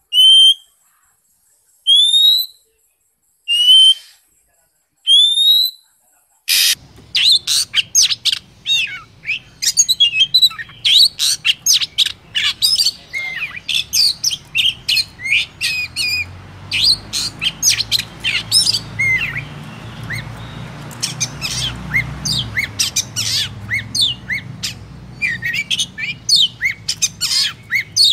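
Oriental magpie-robin: a single rising whistled note repeated about every two seconds, then from about six seconds in a fast, varied song of many short whistles and chirps over faint background noise.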